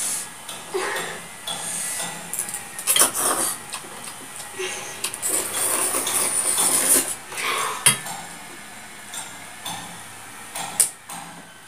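Metal fork clinking and scraping against a stainless steel bowl as noodles are eaten, in scattered short clicks and scrapes, with a hissing stretch of slurping about halfway through.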